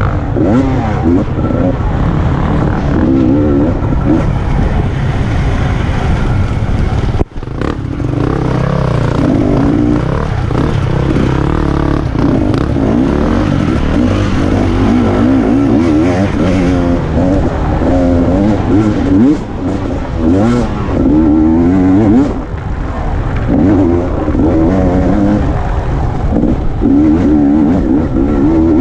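Enduro motorcycle engine heard on board, revving up and down continuously as the rider works the throttle over rough dirt track, its pitch rising and falling every second or so. The sound drops out for a moment about seven seconds in.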